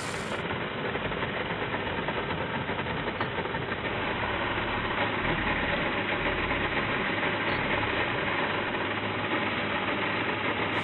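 Electric chainsaw running and cutting into a dry, weathered old tree stump; the sound is steady and grows louder about four seconds in.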